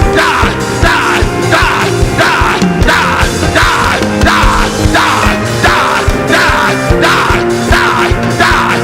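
Loud music with sustained keyboard chords and a fast, driving beat, strongly accented about twice a second, with shouting voices over it.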